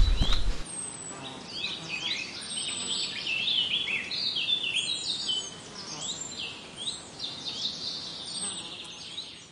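A songbird singing: a long, unbroken run of quick, varied chirps and whistles, some sliding down in pitch, fading towards the end. A brief low rumble of wind or handling noise cuts off in the first second.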